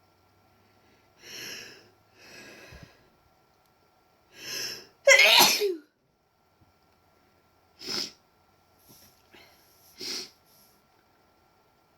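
A woman sneezes once, loudly, after a few breathy inhales build up to it. A couple of short, sharp breaths follow near the end.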